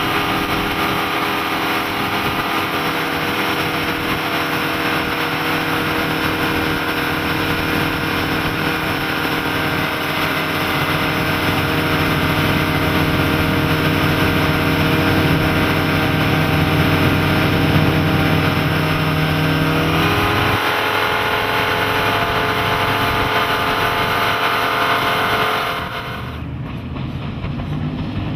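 Suzuki 175 hp four-stroke inline-four outboard running at planing speed, a steady engine drone under the rush of wind and water from the wake. About 20 s in the engine note shifts, and about 26 s in the sound turns quieter and duller.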